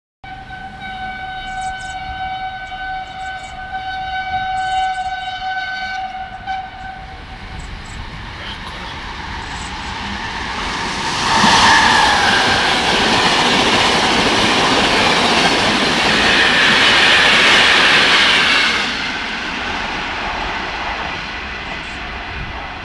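E.444R electric locomotive sounding its horn in one long steady note for about six seconds as it approaches. Then the train passes through the station without stopping: a loud rush of wheels on rails builds up, holds for about eight seconds while the coaches go by, and dies away.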